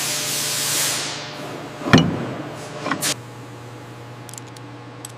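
A rushing hiss that fades out over about a second and a half, then a sharp knock about two seconds in and a smaller one about a second later, over a steady low hum.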